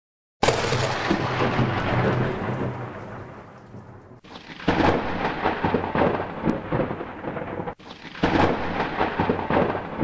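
Thunder with rain: a sudden loud thunderclap just after the start, then two more about four seconds apart, each rumbling away.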